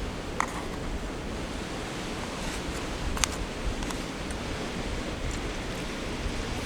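Steady wash of ocean surf and wind, with a few faint clicks.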